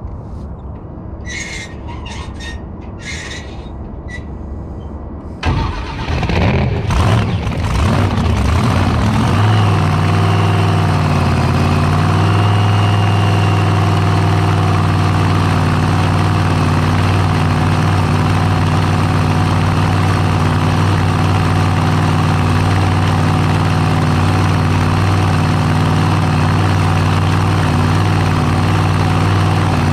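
The supercharged alcohol-burning engine of a jet drag boat fires up suddenly about five seconds in, runs unevenly for a few seconds, then settles into a steady idle. Before it starts there is only a low rumble.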